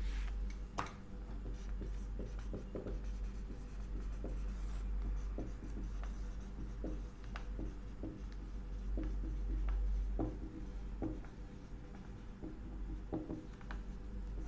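Marker pen writing on a whiteboard: a run of short, scratchy strokes as letters are drawn, over a steady low hum.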